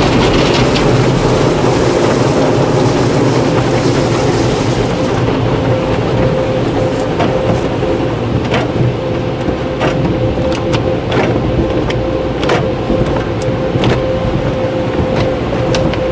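Belanger tunnel car wash's soft-cloth brushes swishing and slapping over the car, heard from inside the cabin, with water spray hissing and a steady hum. From about five seconds in, sharp slaps come every second or so as the cloth strips hit the windshield.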